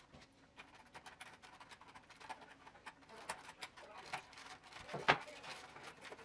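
Punched-out pieces of a 3D stadium puzzle being handled and pressed into the model: scattered light clicks and small knocks, with one sharper click about five seconds in.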